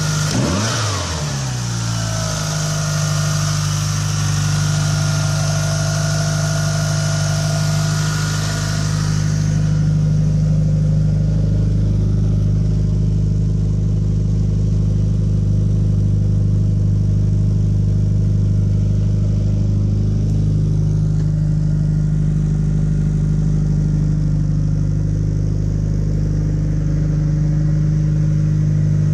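Mitsubishi Lancer Evolution's turbocharged 4G63 four-cylinder engine idling steadily after a brief rev that falls away at the very start. A higher whine and hiss run over the idle and stop suddenly about ten seconds in.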